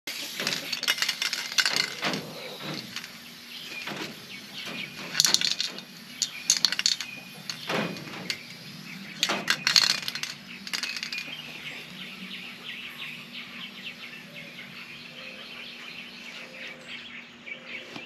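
Aerosol spray can of rubberized undercoating being shaken and sprayed onto a wire cage floor: the mixing ball rattles in quick clusters of clicks, over a steady hiss.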